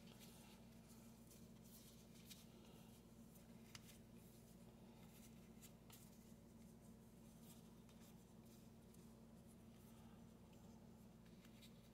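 Near silence: a low steady room hum with faint, scattered ticks and rustles of trading cards being handled and sorted into piles on a table.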